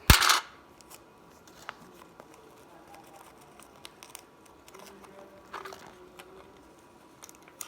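Sticky tape ripped sharply off the roll, then soft crinkling and small clicks as a paper squishy is handled and taped.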